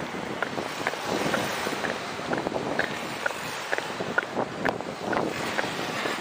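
Wind buffeting the Xiaomi Mijia 360º camera's microphone during a walk, a steady rushing noise. Through it comes a light tick about twice a second, in step with the walker's footsteps.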